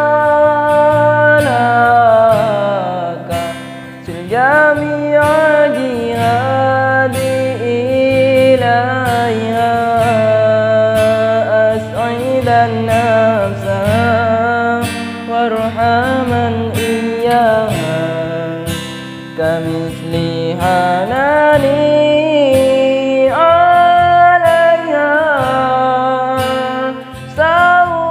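Music: a man singing a slow Arabic-language song over acoustic guitar accompaniment.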